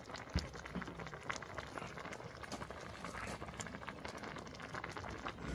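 Pot of spicy rockfish stew boiling over a wood fire, bubbling with many small irregular pops.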